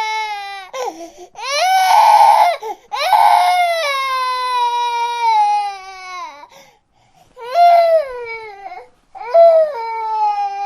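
Infant crying: a series of long wails, each falling in pitch, with short catches of breath between them and a pause of about a second after the sixth second before two more shorter cries.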